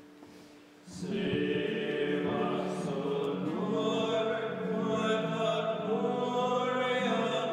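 Choir of Trappist monks chanting, men's voices holding long sung notes, coming in about a second in.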